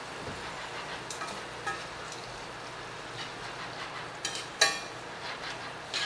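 Sweet peppers and onion frying in a pan with a steady sizzle, while metal tongs click and scrape against the pan several times; the loudest knock comes about two-thirds of the way through.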